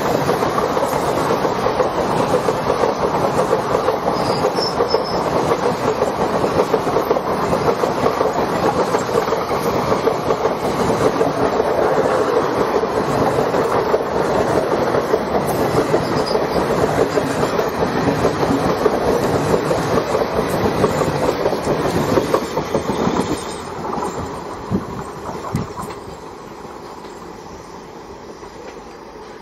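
Passenger coaches of an express train rolling past close by, a steady rumble with the wheels clacking over rail joints. About 23 seconds in, the last coach goes by, a few final wheel clacks sound, and the noise falls away as the train draws off.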